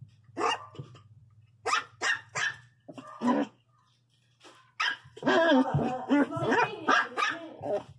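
Miniature pinscher puppy, about two months old, barking angrily in short, sharp barks: about five single barks over the first few seconds, then a rapid run of barks from about five seconds in.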